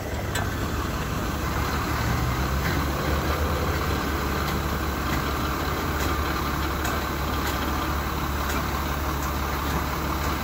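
Flatbed tow truck's engine running steadily while its winch draws a pickup up the tilted bed, with a few light clicks.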